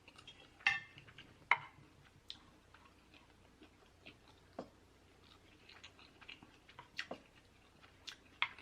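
Close-miked chewing of food, with irregular soft wet mouth clicks and smacks.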